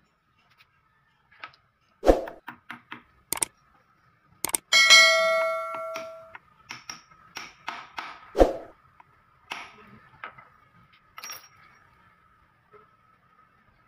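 Hammer blows and lighter taps on a steel pipe used as a drift, driving a ball bearing into a KLX150 suspension linkage. The strikes come irregularly, with three heavy blows; the one near the middle leaves the metal ringing for about a second and a half.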